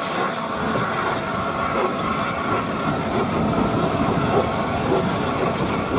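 Peppercorn A1 Pacific steam locomotive 60163 Tornado running at low speed, heard from its own footplate: a steady mix of steam hissing and running rumble, with steam billowing round the cab side.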